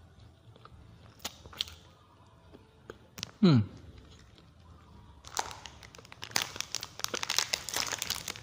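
Plastic snack-cake wrapper crinkling and crackling as it is handled and torn open, a dense run of crackles over the last three seconds. A brief, sharply falling tone comes about three and a half seconds in and is the loudest single sound.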